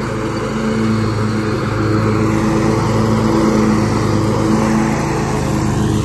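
Scag Tiger Cat II zero-turn mower running with its engine at mowing speed and the cutting deck engaged, a steady engine drone with a hiss above it. It grows a little louder toward the middle as it passes close by.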